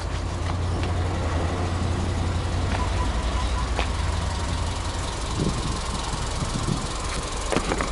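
Subaru Legacy Touring Wagon 2.0i B-Sport's 2.0-litre flat-four boxer engine idling steadily. A few light clicks and taps come near the end.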